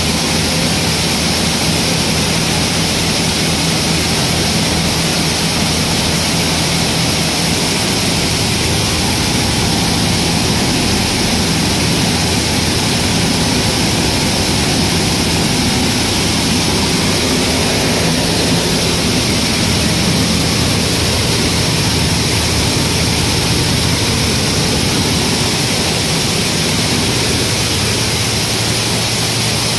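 Grain-cleaning machine (destoner and grader) running steadily: an even, loud rushing noise with a low steady hum underneath.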